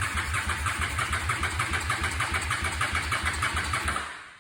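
2004 Honda Shadow's V-twin being turned over by its starter motor, a rapid even chugging that never catches and stops near the end. The engine cranks but won't fire.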